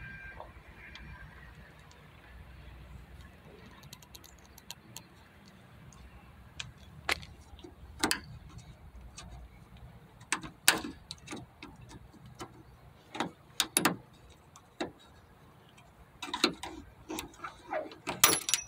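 Scattered sharp metallic clicks and knocks as a thin tool pries at the upper end fitting of a car trunk-lid gas lift strut to free it, coming more often near the end.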